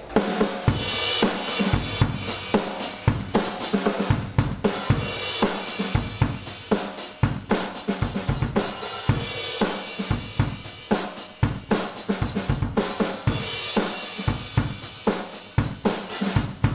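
An acoustic drum kit played with sticks: bass drum, snare and tom hits with crashing cymbals, several strikes a second in a steady driving beat with fills.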